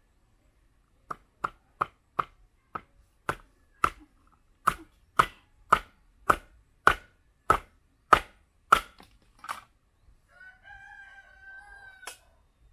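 A large knife chopping into nipa palm fruit on a wooden chopping block: about sixteen sharp chops, roughly two a second, each with a short ringing knock. Near the end a rooster crows once, a drawn-out call of under two seconds.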